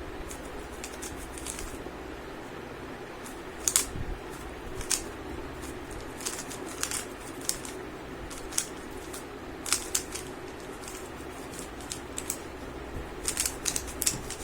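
3×3 Rubik's cube being turned during a speed solve: irregular sharp plastic clicks and clacks of the layers, bunching up near the end, over a steady background hum.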